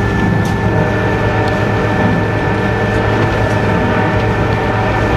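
Steady running noise inside a diesel-electric locomotive cab under way: a constant low engine hum with a thin steady whine above it, and a couple of faint clicks.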